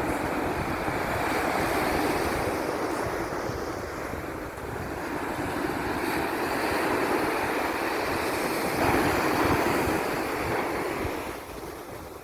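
Sea waves washing on the shore in a steady rush, swelling louder about nine seconds in and easing near the end, with wind buffeting the microphone.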